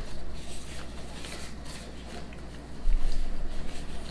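Crinkly food wrapper rustling and crackling as it is handled, in several short bursts, with a dull low bump about three seconds in.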